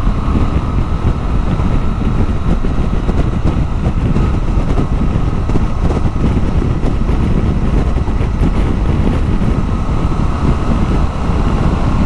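Honda Transalp 750's parallel-twin engine pulling steadily at about 130 km/h, around 4800 rpm, under heavy wind rush on the microphone. The sound holds steady, with no change in engine pitch.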